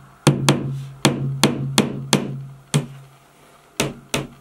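Claw hammer driving a nail into a wall: about seven quick sharp strikes, then two more near the end, with a low ringing hum under the first run of blows.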